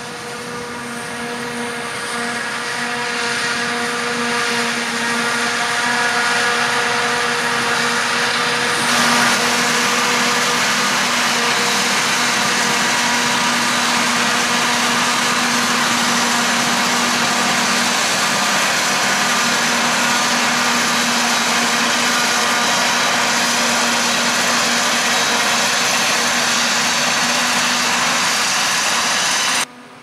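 Claas Jaguar 970 self-propelled forage harvester chopping maize and blowing it into a trailer driven alongside: a loud, steady mechanical drone with a held whine. It grows louder over the first few seconds, then holds steady, and cuts off just before the end.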